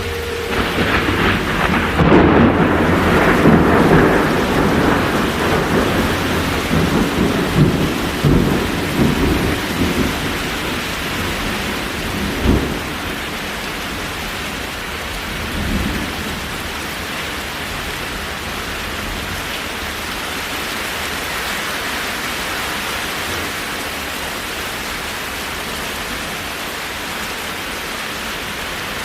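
Thunder rumbling over steady rain. The rumble is loudest in the first few seconds and fades after about ten seconds. Two shorter rumbles follow, then only the rain continues.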